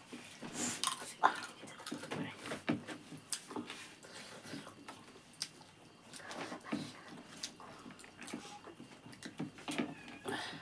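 Close-up eating sounds of people eating rice and chicken curry by hand: irregular chewing, lip smacks and short mouth clicks, with an occasional light clink of a plate.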